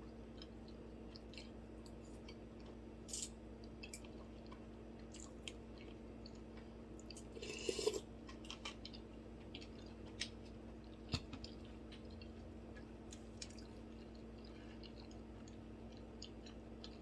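Close-miked chewing and soft wet mouth sounds of a person eating, with scattered small clicks and one louder crunchy stretch about halfway through.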